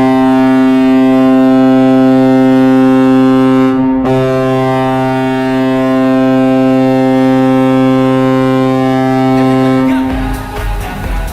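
NHL arena goal horn blasting: a steady, deep horn tone with a brief break about four seconds in, then a second long blast that stops about ten seconds in. A goal song with a pulsing beat takes over near the end.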